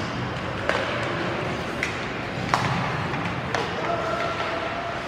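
Ice hockey play heard from the stands of an arena: four sharp clacks of sticks and puck, over steady arena noise and spectators' chatter.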